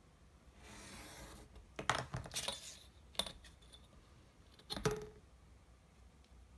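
A finger craft cutter drawn through cardstock along a ruler, a soft scraping hiss, followed by several light knocks and clatters as the ruler and cut paper are shifted on the cutting mat.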